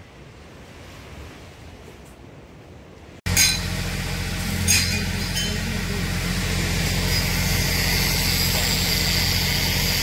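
Faint breezy outdoor ambience, then after a sudden cut about three seconds in, a small engine running steadily and loudly with a rough hiss from metalwork on a steel frame over it, and a couple of sharp metal clinks soon after the cut.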